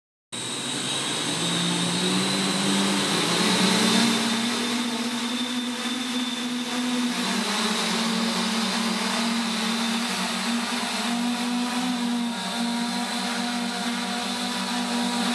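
OnyxStar FOX-C8-HD coaxial octocopter's rotors running: a loud, steady electric-motor hum and whine over a hissing rotor wash. The pitch steps up over the first few seconds as the motors spin up, and the craft lifts off carrying a slung box payload.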